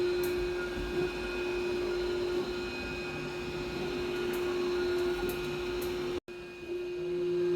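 Miwhole window-cleaning robot's suction motor running with a steady whine over a hiss. The sound cuts out for a moment about six seconds in, then resumes unchanged.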